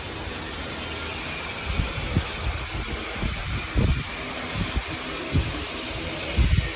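Steady hiss of heavy rain, with irregular low thumps throughout.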